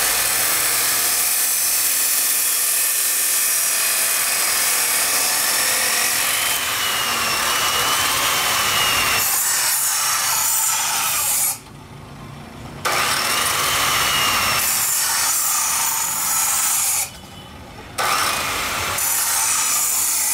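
Abrasive cut-off saw (chop saw) grinding through square steel stock with a steady harsh hiss. The sound drops away twice for about a second, just past halfway and near the end, then resumes. A faint whine rises and falls in the middle.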